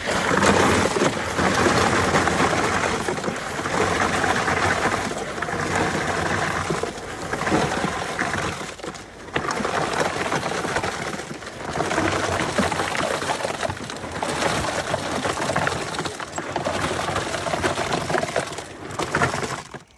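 Wet concrete pouring from a concrete pump's hose, coming in surges that drop off briefly every two to two and a half seconds with the pump's strokes.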